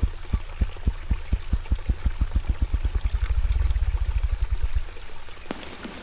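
Male ruffed grouse drumming: its wings beat forward and back to make deep, low thumps. The thumps start slowly, speed up into a rapid blur, and stop about five seconds in.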